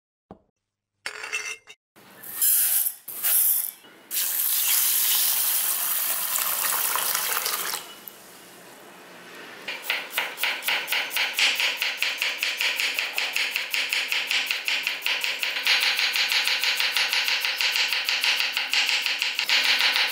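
A cup clinks on its saucer, then water pours steadily into a steel pot of basmati rice for a few seconds. From about halfway on, a knife chops red onion on a wooden cutting board in quick, even strokes, about four a second.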